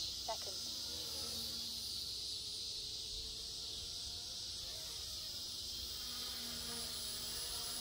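Steady chorus of insects, an even, high-pitched drone, with a brief chirp just after the start.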